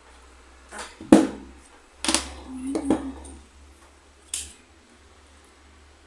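Small plastic craft items, a paint jar and a clear plastic ruler, picked up and set down on a hard tabletop: about four sharp knocks and clatters, the loudest about a second in.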